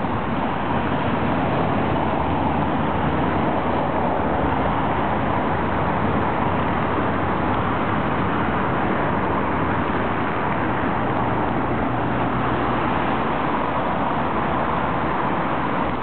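Steady, unbroken hiss of city traffic.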